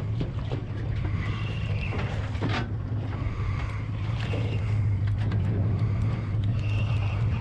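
Boat's engine idling with a steady low hum, with a single knock about two and a half seconds in.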